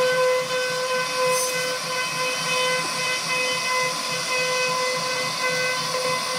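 CNC router spindle running at a steady high pitch with a hiss of cutting noise, routing wood.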